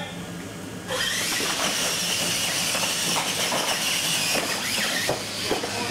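Two electric R/C monster trucks launching from the start line and racing on a dirt track: motor and gear whine with tyre noise starts suddenly about a second in and drops off about five seconds in.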